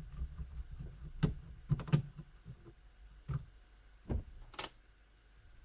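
About six scattered small clicks and taps of a screwdriver and tiny screws as a laptop's Wi-Fi card is unscrewed.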